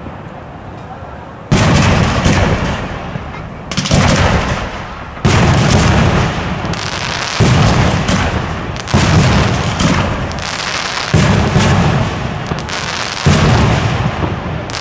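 Aerial firework shells bursting overhead: about eight loud booms, one to two seconds apart, each with a rumbling echo that dies away before the next.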